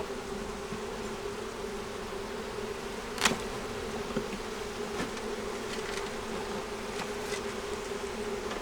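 Honey bees humming from an opened nuc hive, a steady drone, with a sharp click about three seconds in and a few fainter ticks afterwards.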